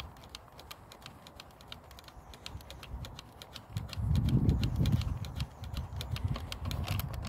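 Fingers turning the knurled speedometer-cable nut on a Honda CG125 to unscrew it, giving a run of small quick clicks and scratches, with a louder low rumble about four seconds in.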